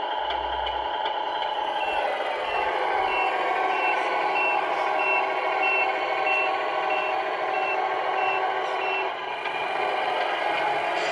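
A Tamiya Scania R470 RC truck's sound unit plays a reversing beeper while the model truck backs up, beeping about every 0.6 s from about two seconds in until near the end. Under the beeps runs a steady simulated engine hum.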